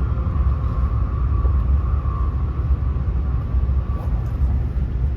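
Steady low rumble of a Shinkansen bullet train running at speed, heard from inside the passenger car.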